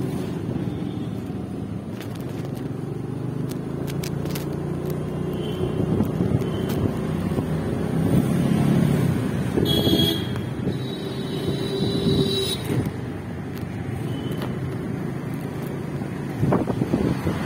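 A vehicle's engine running under way amid road traffic noise, with a higher held tone sounding for about two seconds midway through.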